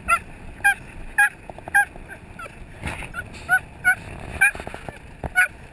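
Excited dog giving short, high-pitched yelping whines over and over, about two a second, over steady wind and tyre noise from the moving car.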